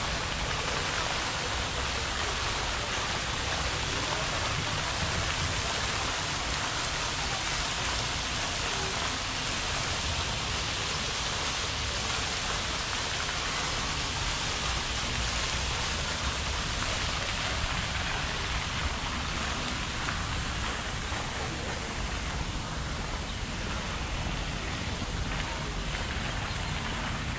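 Fountain water splashing steadily, an even rushing hiss with no breaks.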